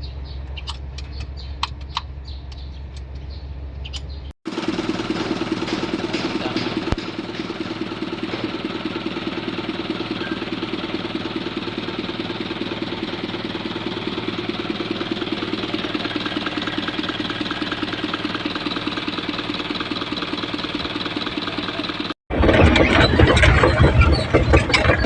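Isuzu 4HL1 four-cylinder diesel engine running steadily, its hard-starting fault repaired. The sound jumps twice at edits: a quieter hum with light clicks for the first few seconds, then the engine running evenly, then a louder, rougher stretch near the end.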